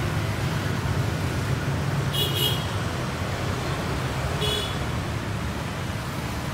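Road traffic running steadily, with two short high-pitched horn toots about two seconds and about four and a half seconds in.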